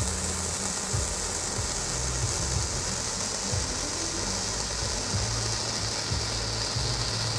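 Red Xplode 'Bunte Flamme' Bengal flame, a Category 1 ground firework, burning with a steady hiss. An uneven low rumble runs underneath.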